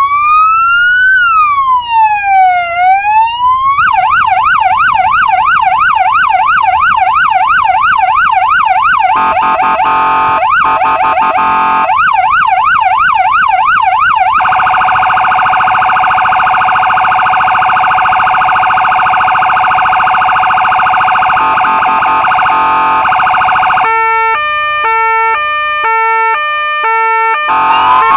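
Polish police electronic siren cycling through its tones. A slow rising-and-falling wail runs for about four seconds, then a fast yelp, then a rapid warble. Near the end comes about three seconds of two-tone hi-lo, and then the wail starts again.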